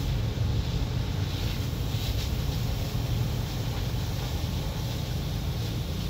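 Wind buffeting the microphone: a steady low rumble.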